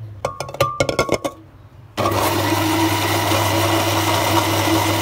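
A quick run of sharp clicks and knocks, then about two seconds in an electric blender switches on abruptly and runs at a steady speed, whipping a liquid mix of eggs, sugar and oil.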